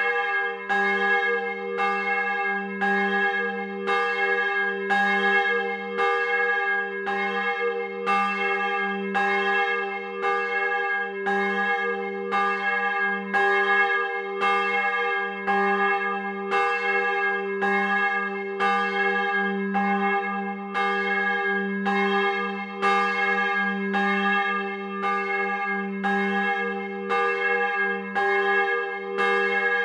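Swinging church bell ringing close up in its timber bell chamber: steady clapper strikes, roughly two a second, each leaving a long ringing hum that carries over into the next.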